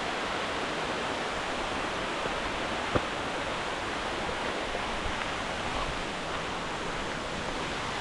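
Steady rush of a waterfall, with one short sharp knock about three seconds in.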